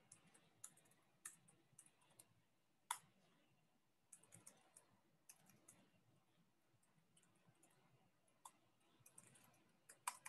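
Faint typing on a computer keyboard: irregular keystrokes in short runs, with a sharper click about three seconds in and another near the end.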